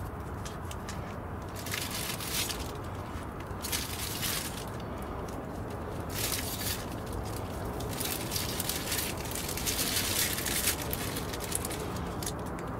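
Hands working tulip bulbs into loose potting soil in a plastic pot: irregular short scratchy, crunching rustles as the bulbs are set down and pressed in.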